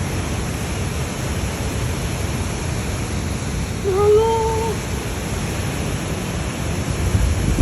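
Steady rushing noise, heaviest in the low end, like a waterfall or wind. About four seconds in comes one short pitched call, under a second long, that rises slightly and then holds.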